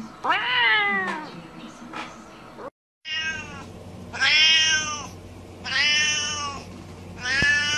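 Domestic cats meowing: one meow rising and falling in pitch near the start, then, after a brief break, three long drawn-out meows in a row about a second and a half apart.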